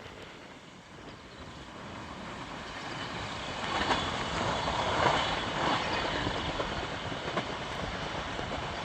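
Passenger train running along the rails: wheel and rail noise with no horn. It dips in the first second, swells to its loudest about halfway through, then holds.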